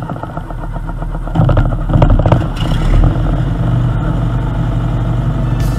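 Petrol engine of a vintage Dennis 4-ton lorry running as the lorry is driven along the road, with a rapid, even beat, getting louder about a second and a half in.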